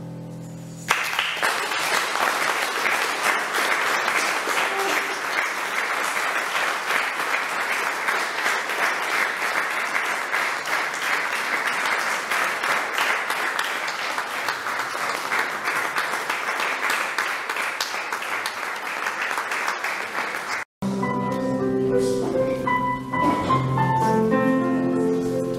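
A crowd applauding for about twenty seconds, cut off suddenly; music with held notes starts again right after the cut.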